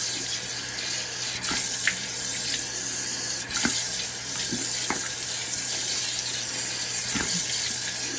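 Bathroom sink tap running steadily into the basin, with a few short splashes as hands scoop water to rinse a face.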